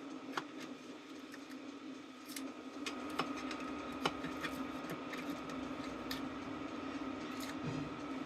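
Scattered light clicks and taps of metal parts being handled while a vintage fire alarm bell is taken apart, about eight in all, over a steady low hum.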